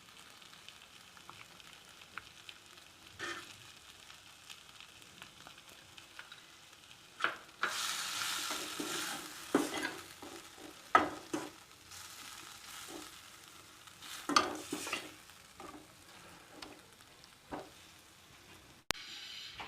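Onion, tomato and garlic kulambu sizzling in a pan while a spoon stirs it, scraping and knocking against the pan again and again. The sizzle swells loudest about eight to ten seconds in, and there is a sharp click near the end.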